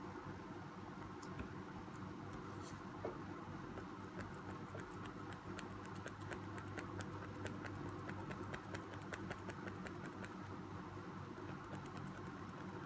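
Kuru Toga Advance 0.5 mm mechanical pencil writing and marking on paper: a run of quick, light scratching ticks of the lead on the page, thickest in the middle, over a low steady hum.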